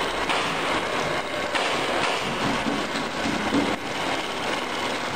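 Circular scarf-knitting machine running, its needles and cams clattering steadily.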